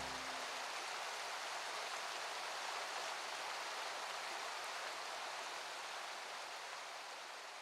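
Steady rush of a waterfall, an even hiss of falling water that slowly fades out over the last couple of seconds.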